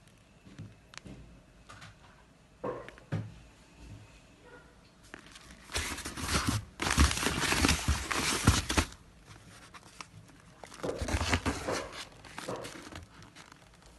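Packaging being handled: plastic wrapping crinkling and rustling, with scattered small clicks and knocks, and a loud stretch of rustling and tearing about halfway through, then a shorter burst of rustling near the end.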